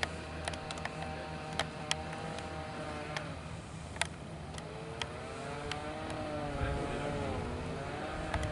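A motor running with a pitch that wavers up and down over a steady low hum, with sharp clicks scattered through.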